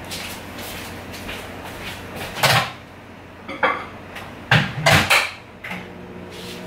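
Microwave oven being loaded and shut, several knocks and clunks of the door and bowl, then the microwave starts running with a steady low hum about two-thirds of the way in.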